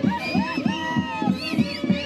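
A Peruvian Huanca typical orchestra playing Santiago festival music with a steady beat of about four strokes a second. A high voice calls out over it in rising and falling cries.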